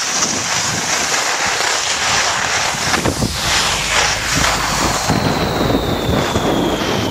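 Wind rushing over the microphone on a fast ski descent, with the skis scraping over the snow.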